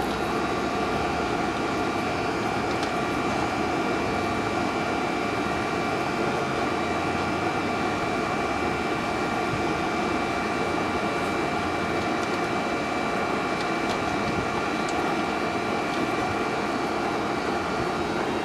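A steady mechanical drone with several steady whining tones over it and a few faint ticks.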